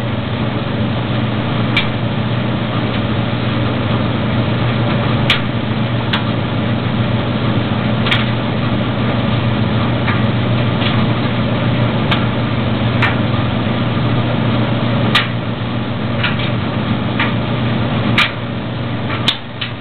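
Maytag DG608 gas dryer running: a steady motor and drum hum with irregular light clicks and knocks about once a second. The burner is cycled off.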